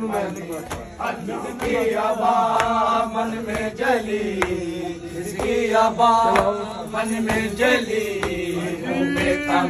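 Shia mourning chant (noha), a voice holding long, wavering notes, with sharp hand slaps on the bare chest (matam) coming at intervals.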